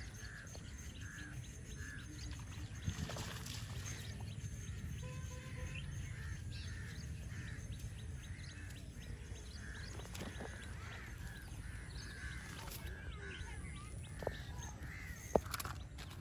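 A steady series of short animal calls, about two a second, over a low rumble of wind on the microphone, with a few sharp clicks near the end.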